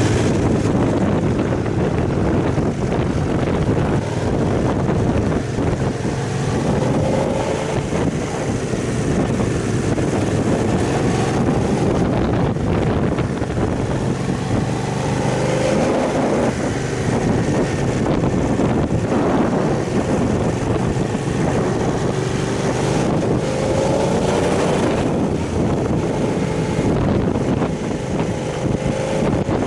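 Aprilia Caponord 1200's V-twin engine running under way at low road speed, its pitch rising and falling several times as the throttle opens and closes, with wind noise on the microphone.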